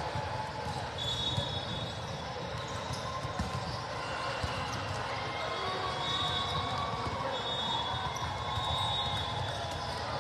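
Volleyballs being hit and bouncing on a sport-court floor during a warm-up, a scatter of short thuds over a steady babble of voices in a large hall.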